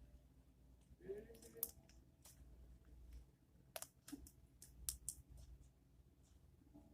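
Faint, sharp clicks and pops of slime being kneaded and stretched by hand, irregular, about six of them over a few seconds.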